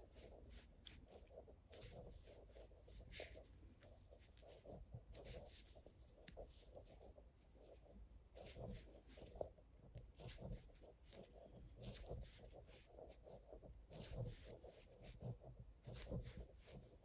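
Faint, irregular clicking and rustling of big knitting needles working mohair yarn.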